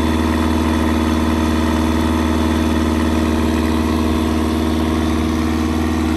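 Turbocharged Rotax flat-four aircraft engine idling steadily on a ground run at low power, just after a new turbo setup was fitted, while it is checked for leaks.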